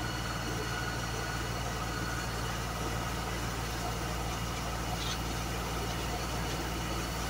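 US Jetting 4018 sewer jetter's engine and high-pressure pump running steadily under load, with a steady drone, while water jets from a penetrator nozzle through a corrugated pipe with a hiss.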